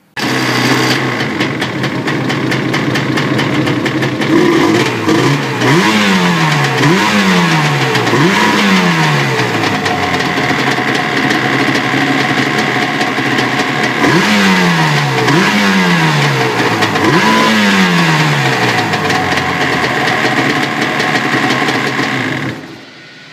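Freshly rebuilt Yamaha two-stroke twin-cylinder jet ski engine running. Two sets of three quick throttle blips, each rev rising sharply and falling back to idle. It cuts off near the end.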